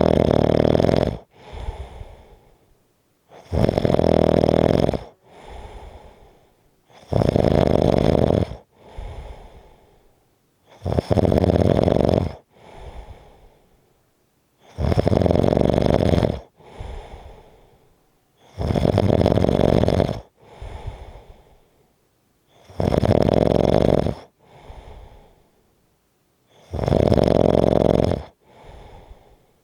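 Rhythmic snoring: a loud snore about every four seconds, each followed by a fainter, shorter breath.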